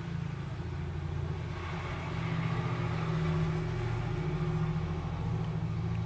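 A motor or engine running steadily with a low hum, a little louder from about two seconds in.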